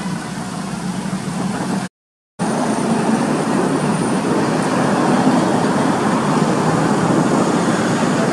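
Steady background road traffic noise, with the audio cutting out completely for about half a second around two seconds in.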